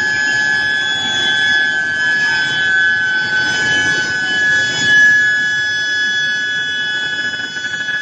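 Induction billet heating furnace running: a steady, high-pitched whine from the energised induction coils, over the rumbling noise of the billet line.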